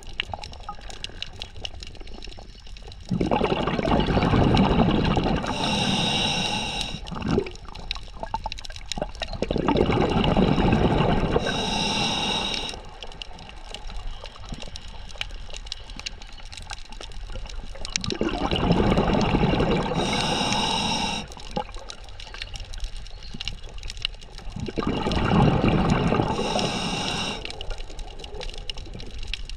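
Scuba diver's regulator breathing underwater: four long rushes of exhaled bubbles, about seven seconds apart, each ending with a brief higher hiss, over a faint steady underwater noise.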